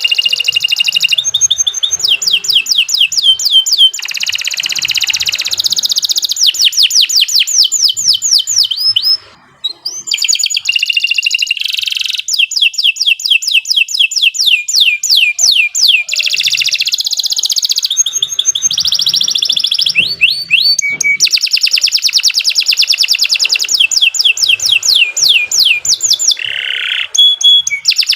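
Domestic canary singing a long, loud, continuous song of rapidly repeated trills and rolls, each phrase a fast run of identical sweeping notes. It breaks off briefly about a third of the way through, then resumes.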